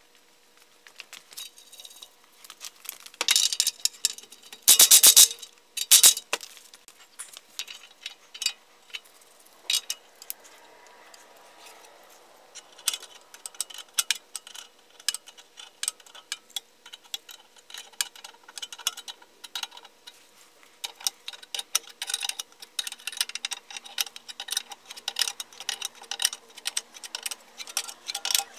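Hand-tool work on a BMW E46 outer tie rod end: metal clinks and a few loud clanks as a tie rod puller is fitted around the ball joint and its threaded nut. Near the end, dense runs of rapid clicking come as a wrench turns the puller's screw.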